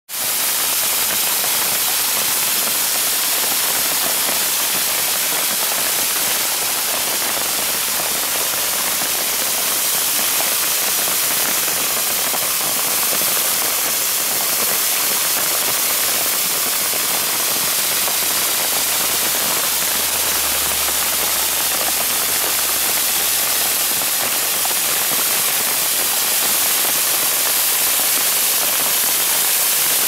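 Small waterfall pouring down a mossy rock face and splashing onto gravel: a steady, even rush of falling water.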